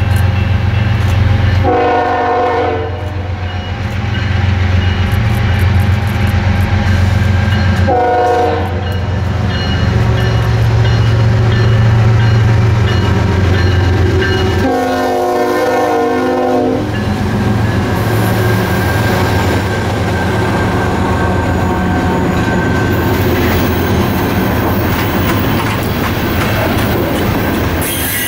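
Diesel freight train horn sounding three blasts for a grade crossing (about a second and a half, then a second, then a longer blast of about two seconds), over the low drone of the lead locomotives' diesel engines, a Union Pacific ES44AC and a Norfolk Southern AC44C6M, as they approach and pass. After the locomotives go by, loaded covered hopper cars roll past with steady wheel-on-rail noise and clickety-clack.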